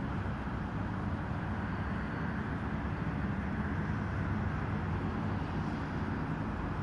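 Wind buffeting the phone's microphone: a steady low rumbling noise with no distinct events.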